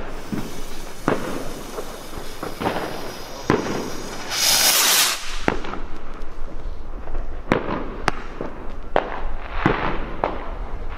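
A firework rocket takes off with a loud whooshing hiss about four seconds in. Sharp bangs and cracks from fireworks are scattered throughout.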